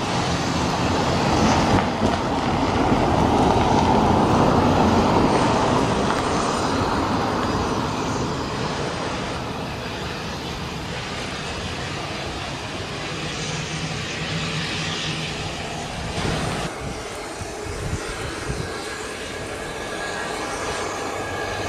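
Twin-engine business jet's turbofans running at takeoff power as it rolls down the runway and climbs away: a steady, dense engine noise, loudest in the first few seconds and easing somewhat after.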